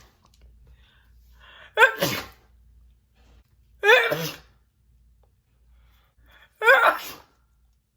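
A woman sneezing three times, about two to three seconds apart. Each is a sudden loud burst after a short breath in, wet and spitty.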